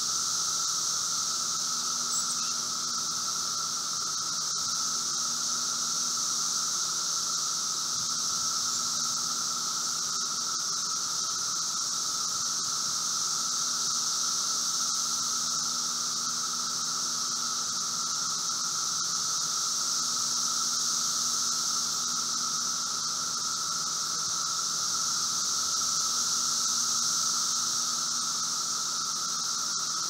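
Steady, even chorus of Brood V 17-year periodical cicadas, Magicicada septendecim among them, with a constant low buzz and a higher hiss layered over it.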